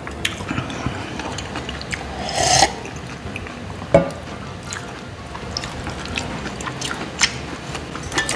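Close-up eating sounds from a man eating a packed lunch out of a soup thermos and small steel containers: chewing and small clicks of food and containers. There is a short, noisy breathy burst about two and a half seconds in, and a single sharp knock about four seconds in.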